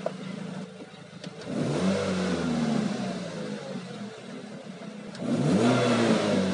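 A 2005 Ford Focus 2.0 Duratec inline-four, stationary, idling and then revved twice: the engine note rises about a second and a half in, falls back slowly toward idle, and rises again near the end. Heard from inside the cabin.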